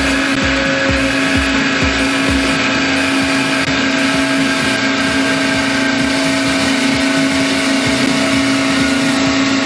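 Alligator HD360R metal-cutting bandsaw running through a steel box section: a steady motor-and-blade hum with one constant tone, and a low pulsing of about two to three beats a second over the first few seconds that fades and comes back near the end.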